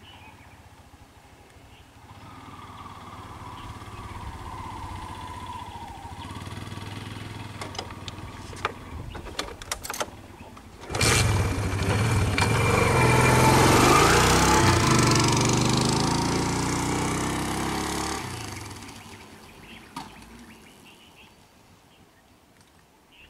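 Vehicle engines on a road. A fainter engine runs through the first ten seconds, with a few clicks. About eleven seconds in, a much louder engine starts abruptly close by, runs for about seven seconds, then fades away.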